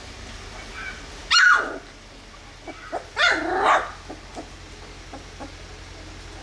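Two-week-old Labrador Retriever puppy crying: a loud high squeal that falls in pitch about a second and a half in, then a longer wavering cry a couple of seconds later, with a few faint squeaks around them.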